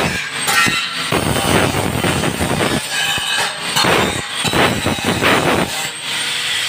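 Angle grinder with its disc grinding against a steel frame, a harsh metal-on-metal grinding that swells and eases every second or so as the disc is worked along the metal.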